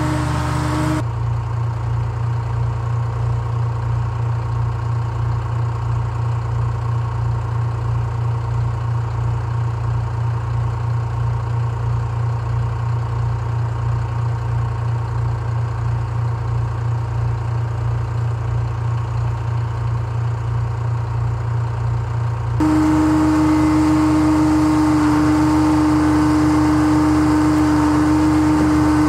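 Gradall excavator's engine running at a steady idle with an even low pulse. Near the end the sound steps up suddenly and a strong steady whine joins as the machine works its boom.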